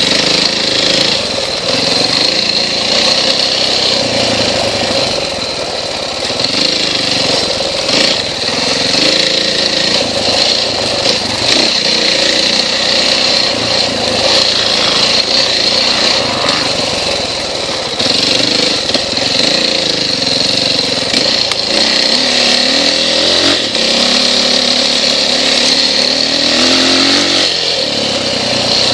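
KTM XC-W dirt bike engine being ridden hard under load, its note rising and falling with the throttle and gear changes. The pitch swings are plainest in the last several seconds.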